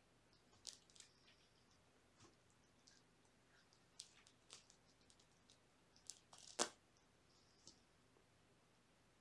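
Kittens wrestling on a scratcher mat: faint, scattered scratching and scuffling of claws and paws, with a louder scrape about two-thirds of the way through.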